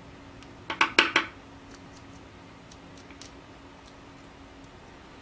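Scissors snipping a piece of craft foam: a quick run of about four sharp snips about a second in, then a few faint clicks of the blades.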